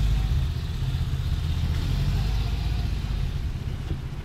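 Small truck's engine idling with a low, steady rumble that fades near the end as the truck is passed.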